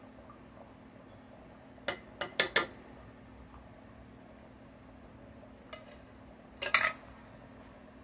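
Metal can of chili beans knocked against a frying pan to shake the beans out: a quick run of four clanks about two seconds in, and another short cluster of clanks near the end.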